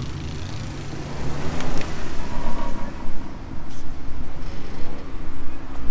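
Vehicle engines running during an off-road sand recovery, a low rumble that grows louder and rougher about a second in.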